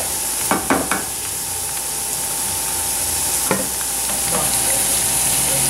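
Diced papaya, onion and garlic sizzling steadily in a frying pan, with a few sharp scrapes of a spatula against the pan in the first second and one more about three and a half seconds in.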